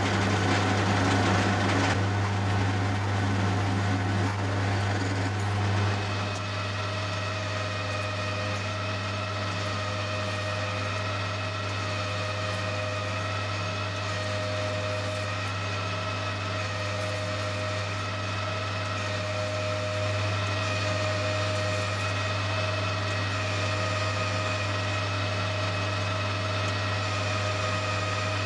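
Colchester Student lathe running under cut with a steady low hum: first a twist drill feeding into the metal part in the three-jaw chuck, then, from about six seconds in, a boring bar opening out the hole to fit the tailstock quill, with a steady whine of several tones over the hum.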